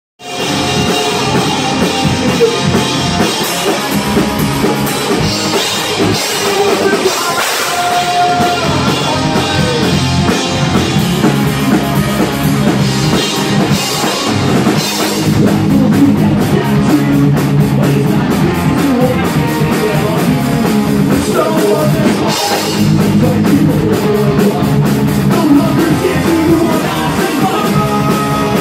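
Punk rock band playing live and loud: electric guitar, bass guitar and drum kit with a sung lead vocal.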